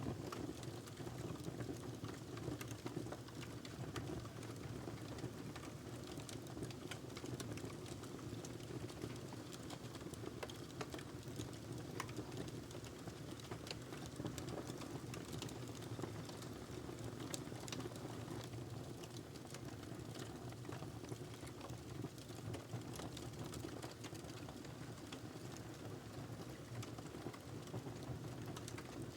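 Log fire crackling: irregular sharp crackles and pops over a steady low rumble of burning wood.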